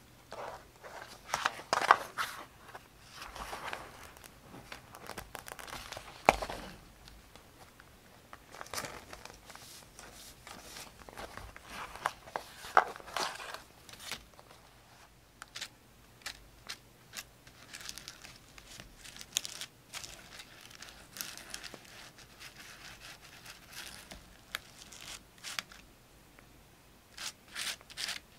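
Paper being handled, crinkled and torn: irregular rustling with sharp crackles, loudest about two, six and thirteen seconds in.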